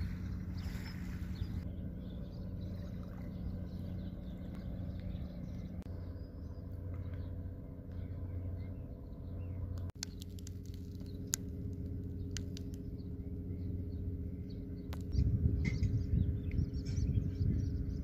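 Steady low drone of distant engines or machinery, made of several held tones, with a few sharp clicks after a break about halfway and a louder low rumble over the last few seconds.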